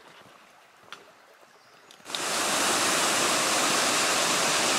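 A faint tick or two, then about two seconds in the steady rush of a small waterfall comes in abruptly and continues loudly.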